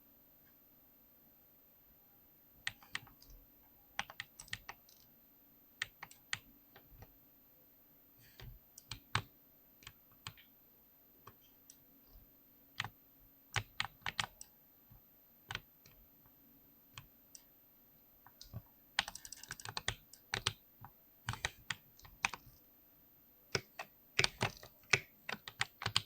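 Mechanical keyboard being typed on: irregular, unhurried keystroke clicks, with quicker runs of typing about three quarters of the way in and again near the end.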